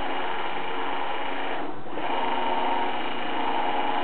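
Servo motor running at about 100 V from a MOSFET H-bridge amplifier, a steady whine made of many tones. It dips briefly about two seconds in as the motor reverses direction, then runs on with its pitch shifted.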